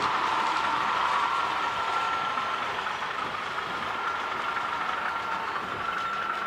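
Model railway locomotive running on the layout: a steady whine over running noise, easing slightly about two and a half seconds in.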